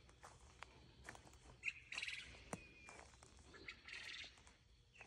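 Faint evening animal calls: a short buzzy trill repeating about every two seconds, with a brief whistled note about halfway through.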